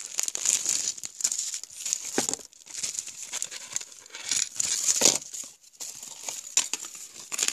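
Plastic packaging crinkling and rustling as a small packet is handled and pulled open by hand. The rustles are irregular, with louder scrunches about two seconds in and again about five seconds in.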